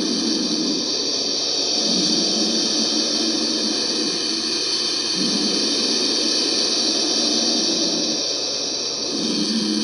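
Turkey vulture hissing: a continuous hiss that swells and eases every few seconds.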